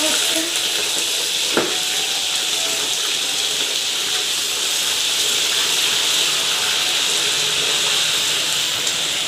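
Raw chicken pieces frying in hot oil in a kadai: a loud, steady sizzle, with one sharp click about one and a half seconds in.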